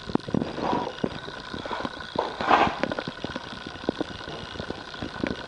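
Irregular knocks and clicks with two louder scraping noises, about a second in and about two and a half seconds in.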